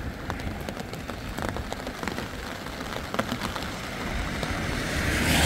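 Heavy rain falling, with many separate drops ticking on a surface. Near the end a louder rushing noise swells up.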